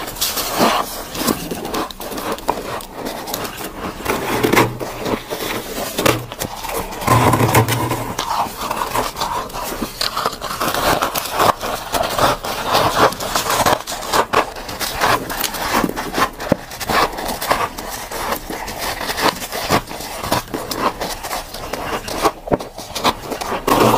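Soft freezer frost being scraped and bitten close to the microphone: a dense, irregular run of crunches and scrapes.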